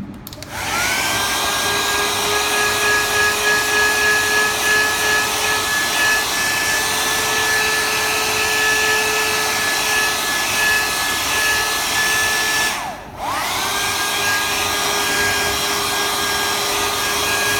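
Handheld electric hot-air dryer running steadily, a rush of air with a motor whine, drying freshly dyed screws. It switches off briefly about three-quarters of the way through, and the whine rises again as it starts back up.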